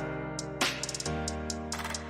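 Electronic music: sustained synth chords that change about a second in, with a cymbal-like burst about half a second in and ticking hi-hats.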